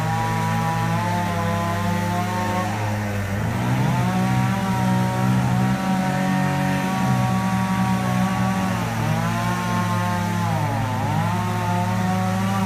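Two chainsaws running at once while cutting into the trunk of a large mango tree. The higher-pitched saw dips and recovers several times as it bogs in the wood, while the other holds a steadier, lower note.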